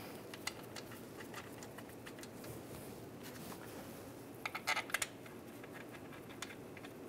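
Faint clicks and light scraping of metal mounting bolts being hand-threaded into a transfer case shift motor, with a short cluster of louder clicks about four and a half seconds in.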